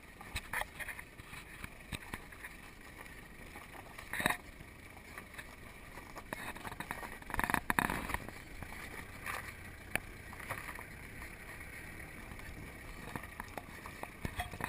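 Vehicle driving slowly over a rough dirt road: a low steady rumble with scattered knocks and rattles as it jolts over bumps, the biggest cluster about halfway through.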